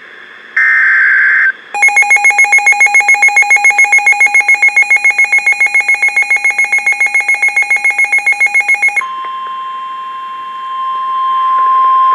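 NOAA Weather Radio emergency alert: the last one-second burst of the SAME data header's warbling digital tones, then an electronic alarm beeping rapidly, about seven beeps a second, for about seven seconds. It gives way to the steady 1050 Hz Weather Radio warning alarm tone, which grows louder near the end.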